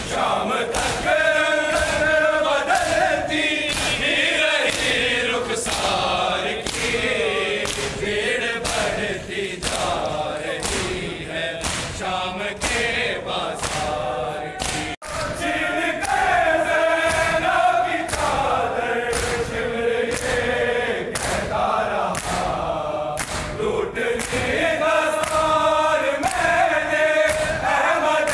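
A crowd of men chanting a Shia mourning lament (noha) in unison, with a steady beat of chest-beating slaps (matam) landing about every half to two-thirds of a second. The sound cuts out for an instant about halfway through.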